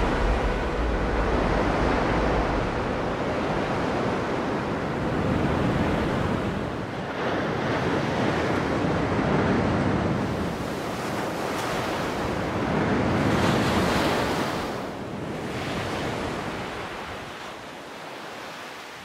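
Small sea waves washing up a sandy beach, the surf swelling and receding several times. There is wind rumble on the microphone in the first couple of seconds, and the sound fades out near the end.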